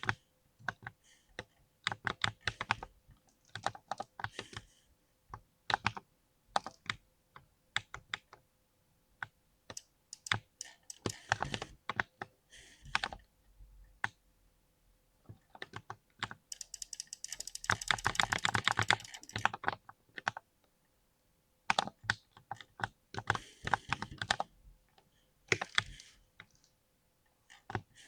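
Mechanical keyboard typing in irregular bursts of keystrokes with short pauses between them. About two-thirds of the way through there is a dense flurry of very rapid keystrokes lasting a few seconds.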